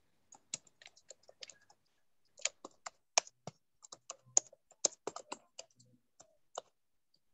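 Computer keyboard being typed on: irregular, fairly faint key clicks in short quick runs with brief pauses.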